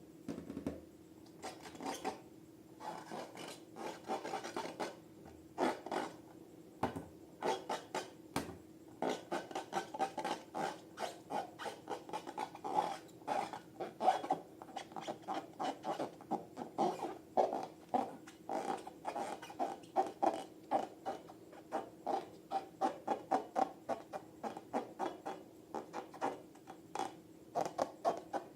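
Hands working balloons and slime: repeated short rubbing strokes, irregular at first and settling into about two a second, over a faint steady hum.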